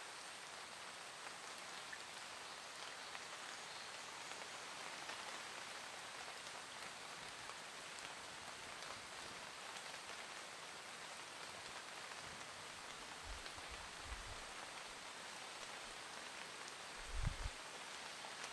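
Steady rain falling on autumn leaves and leaf litter, an even hiss throughout. A few short, low bumps come near the end.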